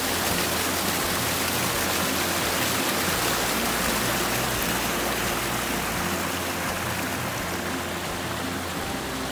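Steady rush of flowing water, an even hiss.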